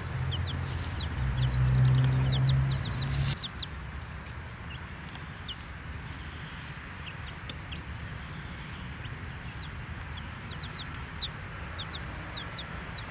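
Baby chicks peeping, with short high chirps scattered throughout. A louder low rumble runs under them for the first three seconds or so and cuts off suddenly.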